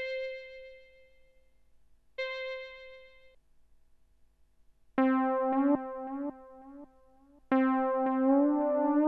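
Synthesizer music with an electric-piano-like tone: two single held notes that fade, then a quick run of changing notes in two parts, and near the end held notes sliding slowly upward in pitch.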